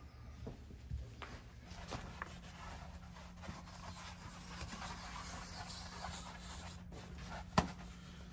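Paper towel being unrolled from its roll onto the floor of a pop-up pen: light rustling of the paper with scattered soft taps, and one sharper tap near the end.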